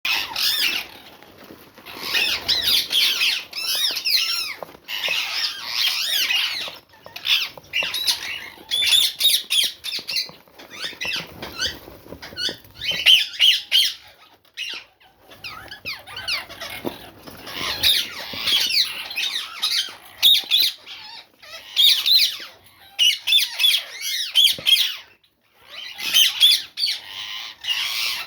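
Small pet birds chattering: rapid, quickly gliding chirps and squawks in dense bursts of a second or two, with short pauses between.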